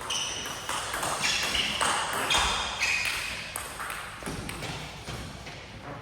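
Table tennis ball being hit back and forth in a rally: a quick, irregular series of sharp clicks as it strikes the bats and bounces on the table.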